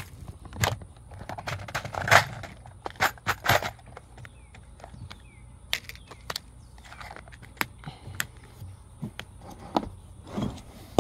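Irregular clinks, knocks and rattles of small metal parts and tools being handled and set down, busiest in the first few seconds and again near the end.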